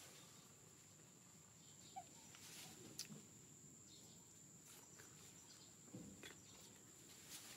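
Near silence: faint outdoor ambience with a steady high-pitched whine and a few soft, scattered clicks.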